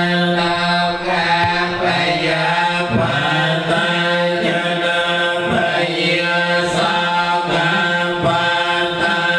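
Theravada Buddhist chanting: many voices chanting together in unison, held almost on one steady pitch, with short breaks for breath every two to three seconds.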